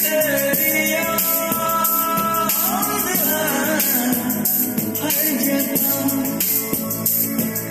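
A song with a singing voice and percussion playing through a small Stuffcool Theo portable Bluetooth speaker, as a test of its sound quality.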